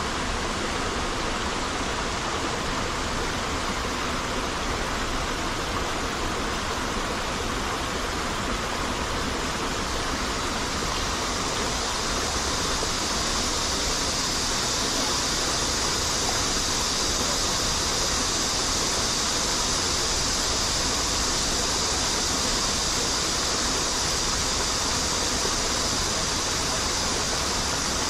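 Small stream running over rocks, a steady rush of water, with cicadas droning in a high band that grows louder about halfway through.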